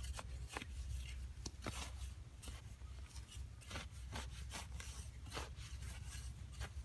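Hands working with materials: irregular scraping, rubbing and clicking, several short strokes a second, over a steady low hum.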